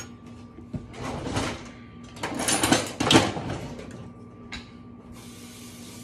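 Kitchen handling sounds: two spells of rattling and scraping with clicks, the second and louder about two to three seconds in, a single click, then a steady hiss from about five seconds in.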